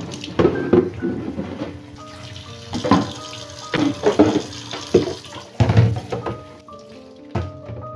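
Kitchen faucet running into a stainless steel sink while a plastic storage container is rinsed under it, with splashing and several hollow knocks as the container is handled. Light background music plays underneath.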